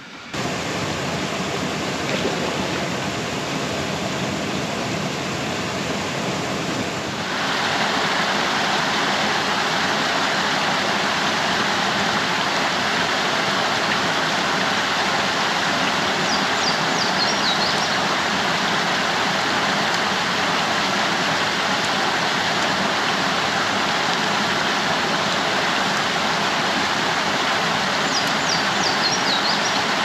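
Small creek waterfall pouring into a pool, a steady rush of water, in falling rain. The rush grows louder about seven seconds in.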